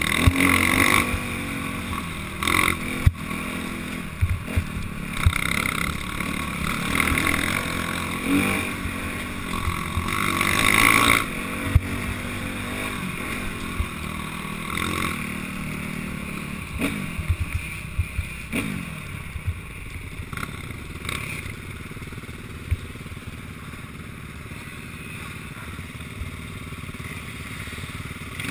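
Enduro dirt bike engine running and revving in surges on a rough trail, with frequent knocks and rattles from the bike going over bumps. It is louder in the first half and quieter in the second.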